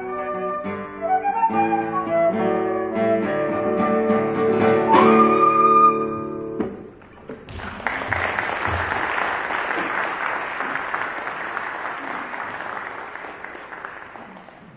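Flute and classical guitar playing the closing bars of a lively duet, the flute sliding up to a high final note over a last guitar chord that rings until about six and a half seconds in. Audience applause follows about a second later and slowly fades.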